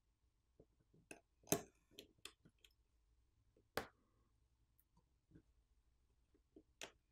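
About a dozen faint, scattered clicks and taps as a pry tool and fingers work a smartphone's main board loose and lift it out of its frame. The loudest click comes about one and a half seconds in, and another sharp one just before four seconds.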